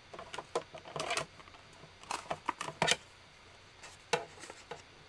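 Irregular clicks, taps and light clatter of plastic plates being handled on a Big Shot die-cutting machine, as the platform, embossing folder and cutting pad are taken out and set up, with some paper handling among them. They come in three short flurries rather than a steady cranking rhythm.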